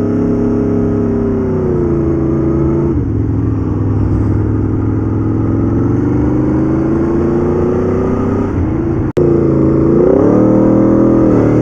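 Aprilia Tuono V4 R APRC's V4 engine through its stock exhaust, heard from the rider's seat under way. The engine note climbs, drops sharply about three seconds in, then climbs slowly again. After a brief dropout about nine seconds in, the revs dip and rise once more.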